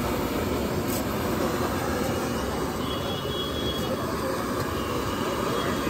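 Steady roar of a street-stall gas burner flaming under a steel frying pan, with the low hum of a busy street behind it.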